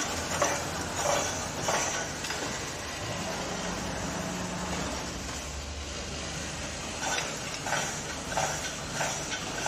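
Automatic wire mesh welding machine running: a steady low hum with a regular sharp clack about every two-thirds of a second, which eases off for a few seconds in the middle and then resumes.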